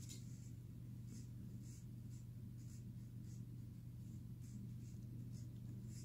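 Faint scratchy rustling of hands handling a picture book, short soft scrapes every half second or so, over a steady low hum.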